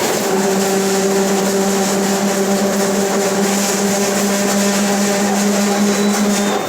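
Mercedes-Benz OF 1721 BlueTec 5 bus's differential droning at a steady pitch while the bus runs, over constant road noise.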